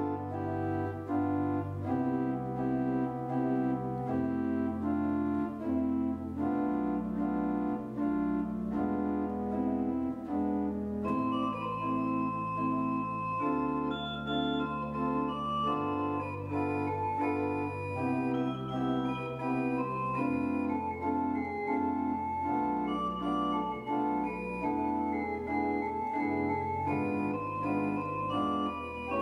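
Church organ playing slow sustained chords over a pedal bass line, the chords changing every second or so. About eleven seconds in, brighter, higher notes join as a melody line above the chords.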